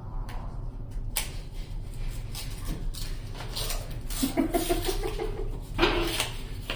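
Yu-Gi-Oh trading cards and booster-pack wrappers being handled, with irregular clicks and rustles as cards are flipped and sorted. A brief pitched sound comes a little past halfway, and a louder rustling burst follows about a second later.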